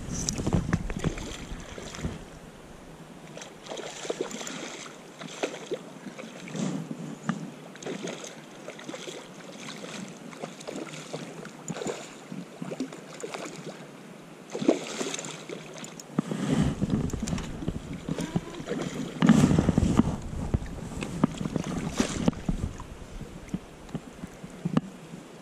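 Hooked steelhead splashing and swirling at the surface of a river as it is played on a spinning rod, with water sloshing around the angler. Wind buffets the microphone in two long gusts in the second half.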